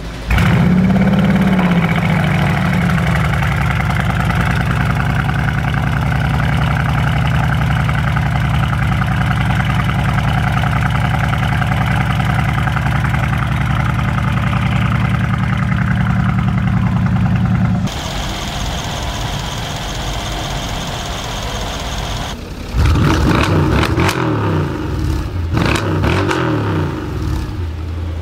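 Brabus-tuned Mercedes performance engine starting up with a flare of revs that rises and falls, then idling steadily. Later the sound changes and the engine is revved in several quick blips near the end.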